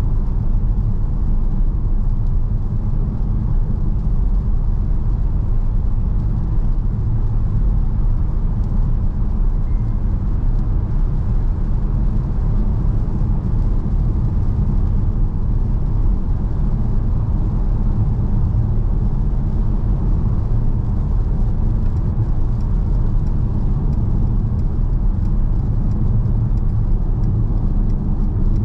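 Mercedes-Benz V 300d van with a four-cylinder diesel, driving at a steady speed: a constant low drone of engine and road noise, with no revving up or down.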